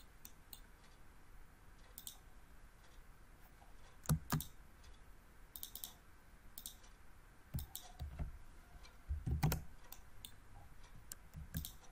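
Faint computer mouse clicking, scattered single clicks, with two heavier knocks about four seconds in and again about nine seconds in.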